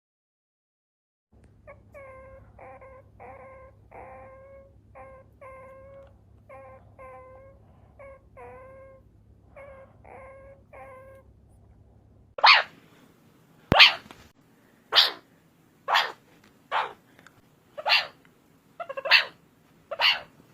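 Meerkats calling: first a faint run of short, pitched chirps about two a second, then, more than halfway through, a series of louder, harsh, raspy calls about one a second.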